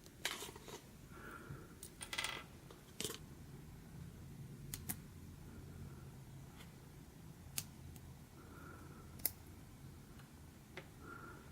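Small plastic LEGO Technic pieces being handled: sharp, irregular clicks and clatters over a faint low hum.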